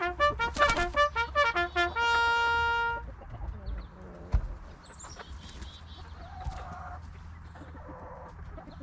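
A brass bugle-style call, short notes ending on one long held note about three seconds in, followed by chickens clucking faintly.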